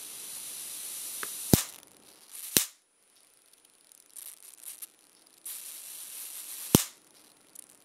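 Small high-voltage generator arcing between two stripped wire ends: a steady sizzling hiss with a thin high whine while the arc holds, broken by sharp spark snaps, about a second and a half in, again about a second later and near the end. In between it goes quieter with faint crackles.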